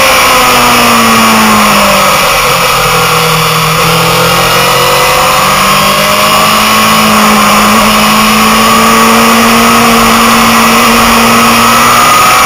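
Motorcycle engine heard onboard over heavy wind rush. The revs fall about two seconds in as the bike slows for a bend, then pick up and hold steady while it leans through the corner.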